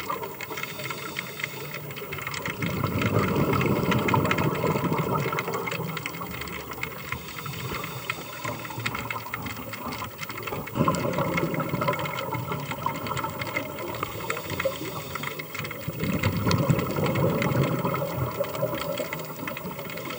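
Underwater scuba breathing: a diver's exhaled bubbles rushing from the regulator in three long swells, about two, eleven and sixteen seconds in, with faint crackling clicks throughout.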